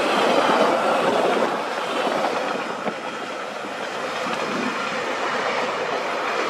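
Indian Railways passenger coaches rolling past on the track, the wheels running over the rails. The sound is loudest at first and eases a little after about a second and a half as the last coach draws away.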